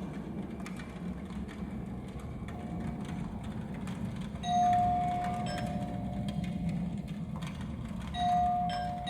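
Two-note ding-dong doorbell chime, rung twice: each ring is a higher ringing tone followed by a lower one, both slowly dying away. A steady low rumble with faint clicks runs underneath.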